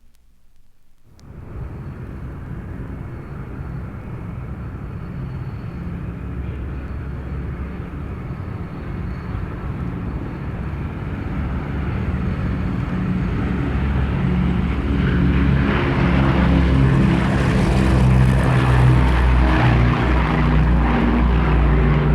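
1960s propeller airplane engine running steadily. It starts abruptly about a second in and grows louder through the second half.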